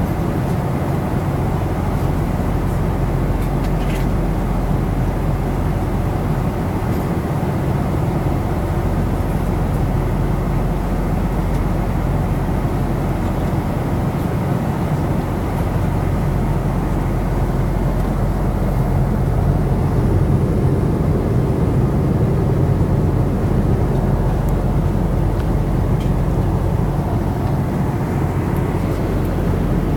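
Steady cabin noise of a jet airliner in cruise: a constant low rumble of engines and airflow heard from inside the passenger cabin.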